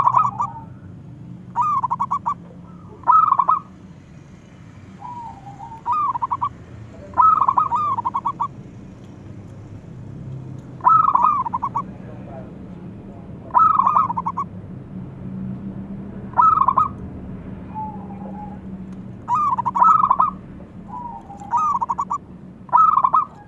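Zebra dove (perkutut) cooing: about a dozen short trilled coos, one every second or two, some led in by a lower note. A steady low hum runs underneath.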